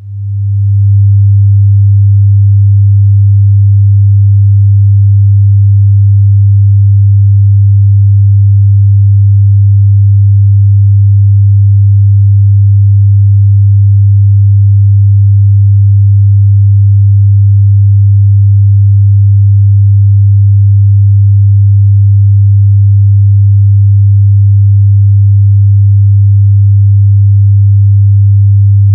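Steady 100 Hz sine-wave test tone, a bass test signal for subwoofer and room set-up, fading in over about the first second.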